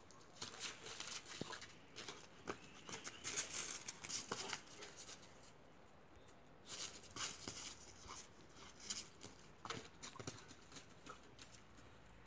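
Irregular crunching, pattering footsteps on icy, crusted snow, in two spells with a short lull between them.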